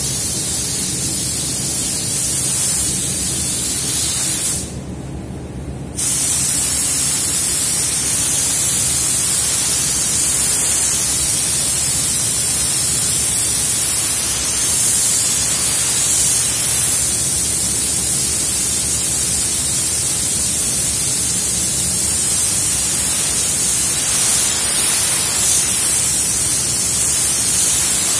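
Gravity-feed spray gun hissing with compressed air as it sprays silver base coat onto a car fender, with a low steady hum underneath. The hiss stops for about a second and a half about five seconds in, then resumes.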